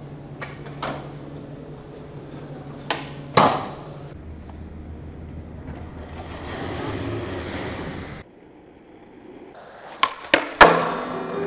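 Skateboard on concrete: a few sharp clacks of the board hitting the ground, a stretch of wheels rolling, then a quick run of three cracks near the end, the last one the loudest, as a trick is popped and landed.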